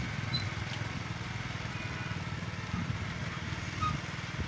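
Small single-cylinder engine, a motorcycle's, running steadily at low speed with a fast, even putter.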